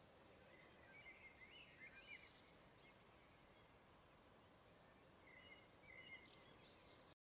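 Faint ambient hiss with small birds chirping faintly in two short runs, about a second in and again near the end; the sound then cuts off abruptly to silence.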